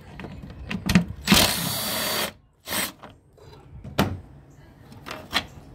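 A cordless power driver with a socket spins a screw out for about a second, then makes a shorter second burst. A few sharp clicks come from the tool and parts being handled.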